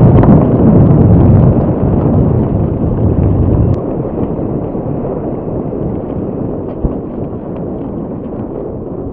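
Wind buffeting the microphone of a bike-mounted camera, with mountain-bike tyres rolling fast over a gravel forest track. A loud rumble drops suddenly to a quieter one a little before halfway, with light ticks and rattles from the gravel and the bike.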